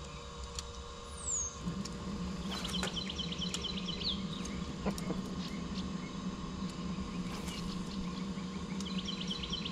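A steady low electric hum sets in about two seconds in and holds: a bass boat's bow trolling motor running. Over it a songbird sings a rapid trill twice, once early and again near the end.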